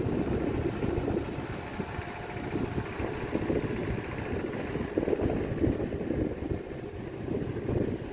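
Wind buffeting the microphone: a low rumbling rush that swells and eases in gusts.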